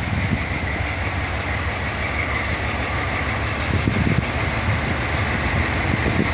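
Diesel locomotive engine running as the train approaches, a steady low rumble that grows slightly louder about four seconds in as it works harder and puffs exhaust.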